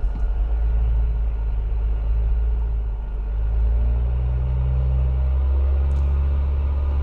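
Diesel pickup engine labouring under load as it tows another truck up a steep hill from a standing start, a heavy low rumble. Its note climbs about a second in and again around three and a half seconds in.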